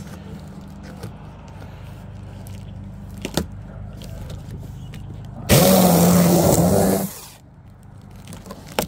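An electric saw is triggered and runs in one loud burst of about a second and a half, starting and stopping abruptly. A knock comes before it and another near the end, over a steady low hum.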